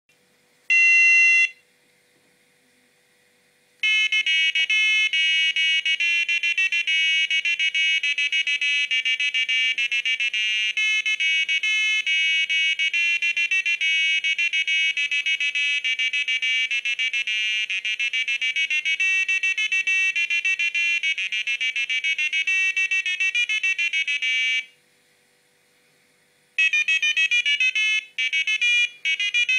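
Casio Melody 80 calculator's built-in buzzer: a short beep about a second in as the clock turns the hour, then the first alarm melody of quick electronic beeping notes for about twenty seconds, which cuts off suddenly. After a short pause, the second alarm melody starts near the end.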